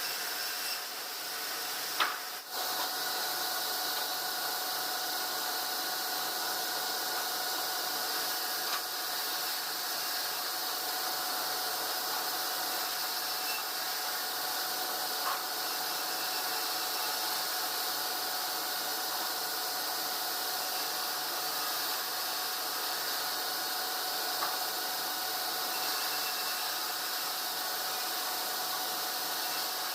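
Sawmill machinery running steadily: an even hiss with a constant hum, and a brief knock about two seconds in.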